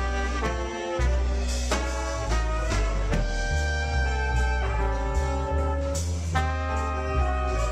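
Live jazz sextet with no chord instrument: alto and tenor saxophones, trumpet and trombone playing ensemble lines together over double bass and drums with cymbals, picked up by camera microphones.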